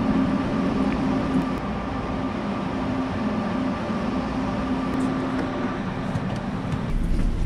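Frecciarossa high-speed electric train standing at the platform, its equipment giving a steady hum with a high whine over it. Near the end the whine stops and a low rumble takes over.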